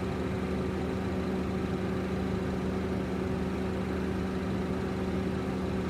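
A steady low mechanical hum, unchanging and even in pitch, with no music playing.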